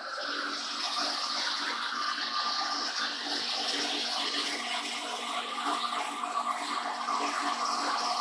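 Spade drill cutting into a metal plate spinning in a Warner & Swasey turret lathe, drowned in flood coolant: a steady splashing, spraying hiss of coolant and cutting, with a steady low hum under it.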